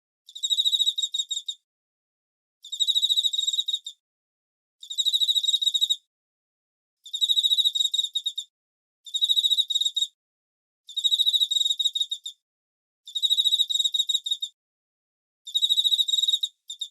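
Cricket chirping: high, pulsed trills, each about a second to a second and a half long, repeated roughly every two seconds with silence between, about eight times.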